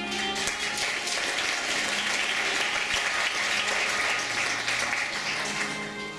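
Audience applauding in a hall as a song ends; the clapping fades out near the end as soft music comes back in.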